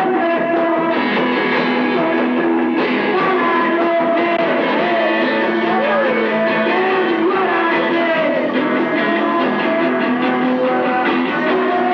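Live band music with a voice singing.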